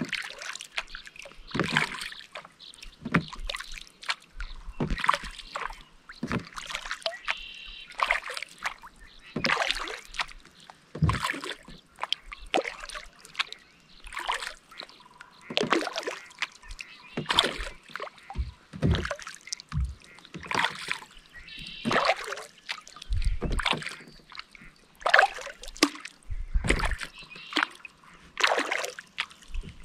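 Kayak paddle strokes in calm lake water: the blades dip in, pull and splash with dripping water, about one stroke every second. There are a couple of low thuds in the second half.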